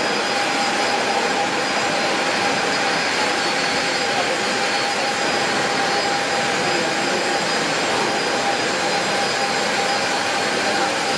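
Jet airliner engines running on the airport apron: a steady whine and rush with a thin high tone held throughout.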